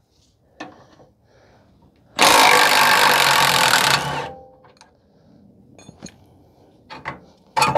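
Impact wrench running in one burst of about two seconds, loosening the lower rear shock absorber bolt on a pickup truck. A few light tool clicks come before and after it.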